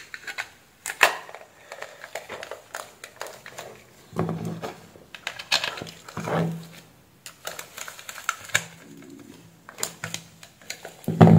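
Irregular plastic clicks and knocks from an Epilady epilator's plastic housing being snapped shut and handled, with a screwdriver picked up and a screw turned into the case in the second half. A few heavier knocks stand out, the loudest near the end.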